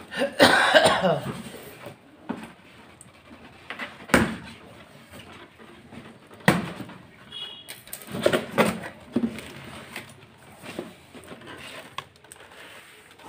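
Plastic shipping wrap crinkling and tearing as a cardboard box is unwrapped and opened. There is a loud burst of crinkling about half a second in, then scattered rustling and several sharp knocks of the box being handled.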